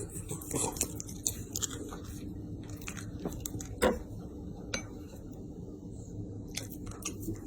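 A dog chewing and crunching food in irregular bites, the loudest crunch about four seconds in.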